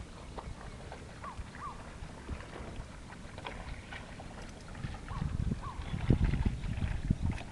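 Lake water lapping and splashing against a kayak, with a louder low buffeting stretch from about five seconds in.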